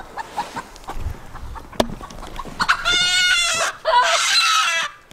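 Chicken giving two loud, drawn-out squawking calls about three seconds in, after a stretch of faint rustling and clicks.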